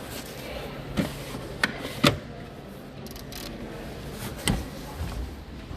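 Several short, sharp knocks and clicks, about five, over steady background room noise.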